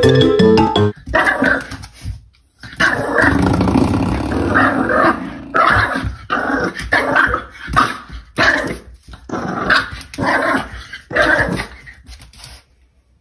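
A puppy growling and barking at a spring doorstop: one longer growl, then a string of short growling barks about once or twice a second. Music plays briefly at the very start.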